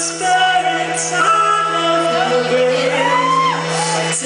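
Live indie rock band playing, with a lead vocal singing over synth and drums and a steady low note held underneath.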